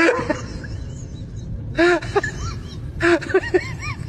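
A young pet's short, high-pitched whimpering cries, in two quick runs about two and three seconds in, over a steady low rumble.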